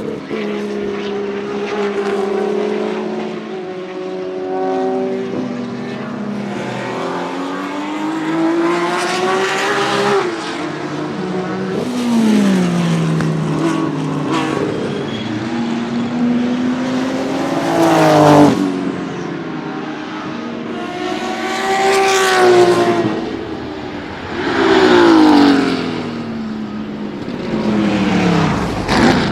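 Porsche 935 K3 race car's twin-turbo 3.2-litre flat-six running hard: its pitch climbs through the gears with drops at each shift, and several times it passes close by with a sharp fall in pitch.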